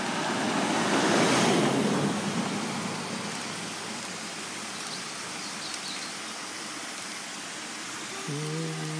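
Brook water running steadily, swelling for a second or so about a second in. Near the end a steady low hum begins.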